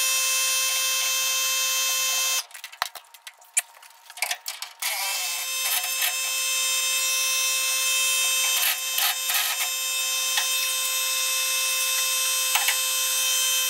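Air impact wrench running in a steady, buzzing stream on rusted rear-suspension bolts. It stops for a couple of seconds, with a few metal clinks, and then starts again and runs on, with a few short knocks.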